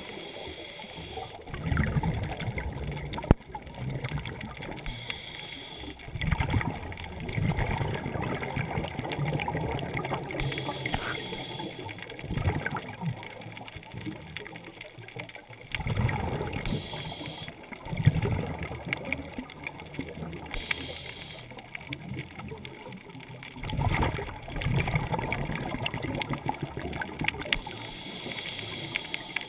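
Scuba regulator breathing underwater: a short hissing inhale through the regulator, then a rumbling burst of exhaled bubbles, repeating about every five to six seconds.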